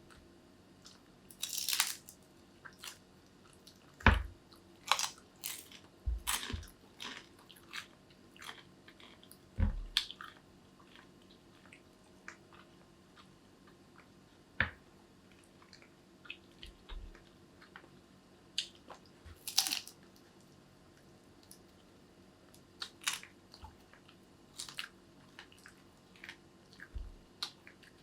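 A person eating close to the microphone: irregular bites, chewing and short wet mouth clicks and smacks, with a few louder crunchy or thudding bites.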